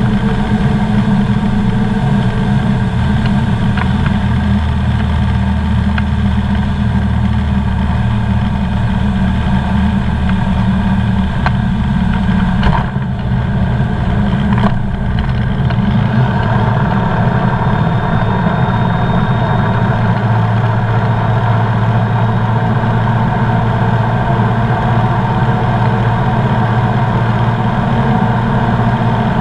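Engine and propeller of a Comco Ikarus C42B ultralight running at takeoff power, heard from inside the open-sided cockpit through the takeoff roll and climb-out. A steady drone, with a brief dip near the middle.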